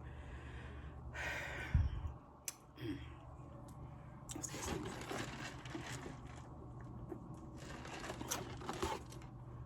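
Crispy fried chicken being chewed and crunched close to the microphone in irregular bursts, with a short low thump about two seconds in, over a steady low hum.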